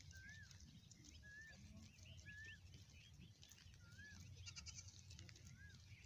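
Near silence, with faint, short rising-and-falling animal calls repeated about once a second over a low rumble.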